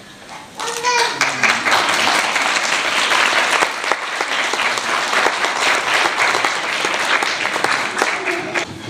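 Audience applauding, a dense clapping that starts about half a second in and fades near the end, with a voice calling out briefly as it begins.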